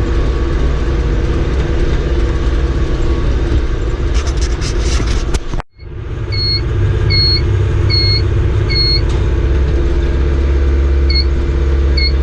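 Tractor engine running steadily under load while baling, with some clatter about four seconds in. The sound drops out for a moment just before halfway, then the engine carries on while an electronic beeper sounds four times at an even pace and twice more near the end.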